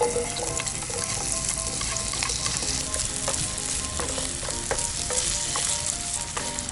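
Potatoes pan-frying, a steady sizzle throughout, with a few sharp clicks.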